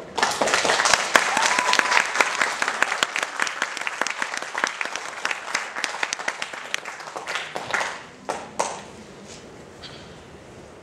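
Audience applauding at the end of a choir's song: dense clapping breaks out suddenly, thins after about six seconds and dies away with a few last claps, with a brief rising tone about a second in.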